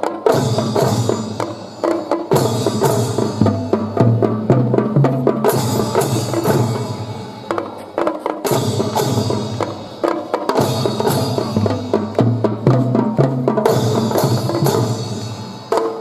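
A children's drum-and-fife band playing a marching piece: drums beating a steady rhythm under pitched melody notes, in phrases with short breaks.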